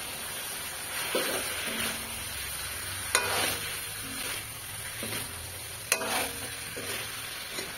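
Pork, potato and pea curry sizzling in a black wok while a metal ladle stirs and scrapes through it, with two sharp clinks of the ladle against the pan a few seconds apart.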